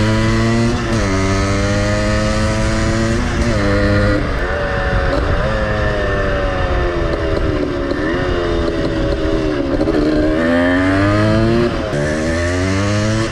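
Motorcycle engine accelerating through the gears: its pitch climbs, then drops sharply at each shift, several times, with a stretch in the middle where the revs waver at a steadier speed.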